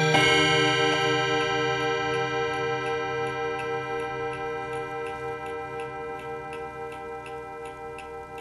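1920s mantel clock striking once at the very start, its ringing tones slowly dying away, while the clock's movement ticks steadily, about three ticks a second.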